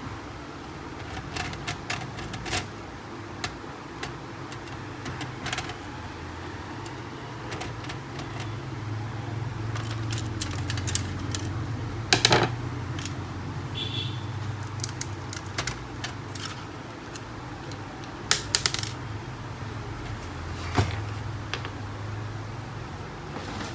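Scattered clicks and clinks of small metal screws and a screwdriver being handled while the laser scanner unit of a Canon MF4820d laser printer is unscrewed. A few sharper knocks stand out about halfway through and near the end, over a low steady hum.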